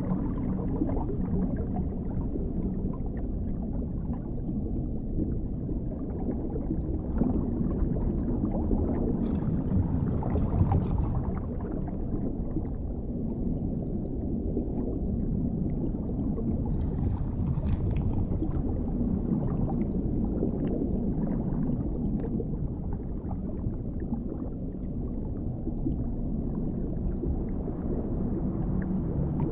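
Dark underwater ambience: a steady, muffled low rumble of water with a faint low hum and occasional faint bubbling.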